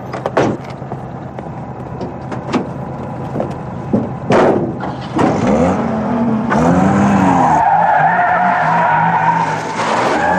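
Commer van pulling away: a few clicks and knocks of the door and controls, then the engine catches about four seconds in and revs up and down as the van accelerates, with tyres squealing through a turn near the end.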